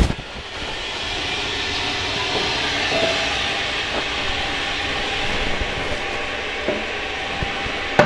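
A steady rushing, hissing noise, with a sharp click at the start and another near the end.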